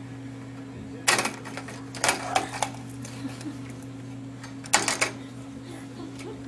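A baby's hands clattering on a plastic computer keyboard and mouse in three short bursts of rapid clicks, over a steady low electrical hum.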